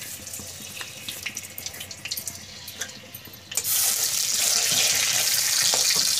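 Sugar frying in hot mustard oil in a wok, faint crackling with scattered pops. About three and a half seconds in, as a spatula stirs it, a loud steady sizzling hiss sets in.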